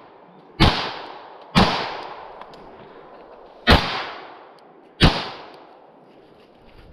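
Four 9mm shots from a Beretta LTT pistol, fired at uneven intervals, each trailing off in a long echo.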